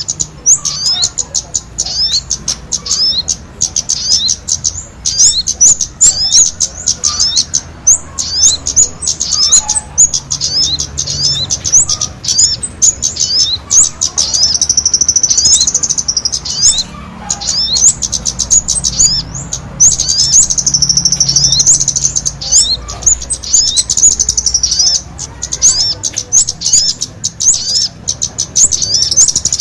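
Bird-lure recording of sogon and kemade calls: fast, shrill, high chirps and short slurred notes, tumbling over each other in a dense, agitated chatter, in places running together into continuous twittering.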